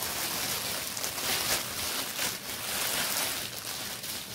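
Packaging being torn and unwrapped by hand: a continuous, irregular rustling and crinkling.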